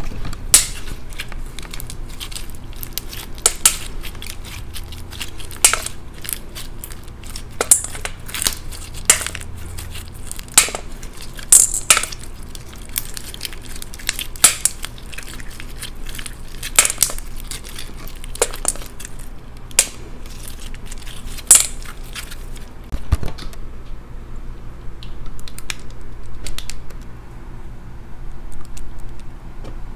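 Clear slime mixed with plastic beads being squeezed and stretched by hand, giving irregular sharp clicks and pops a second or so apart; the pops thin out near the end.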